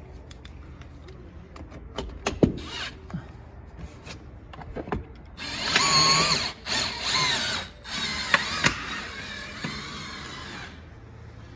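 Windshield cut-out with fiber line: a loud whining squeal that wavers in pitch and breaks off briefly a few times, lasting about five seconds in the second half, as the line is drawn through the urethane bead. A few sharp clicks and knocks come before it.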